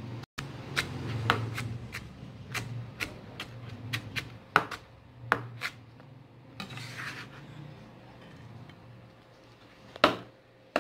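Chef's knife chopping green bell pepper on a plastic cutting board: sharp knocks of the blade on the board, about two a second, for the first half. A brief scrape follows around seven seconds in, the blade gathering the diced pepper, and one more sharp knock about ten seconds in.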